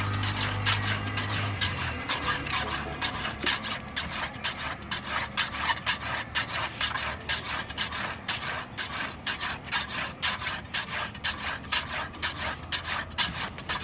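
A hand file rasping back and forth across the steel edge of a kachi sickle in quick, even strokes, several a second, cutting the blade's edge.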